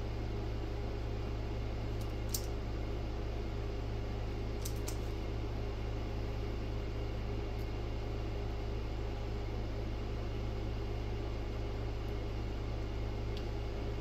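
Steady low electrical hum with a fan-like hiss from the running equipment in the room, broken by a few faint, short clicks as speaker wire and a hand tool are handled.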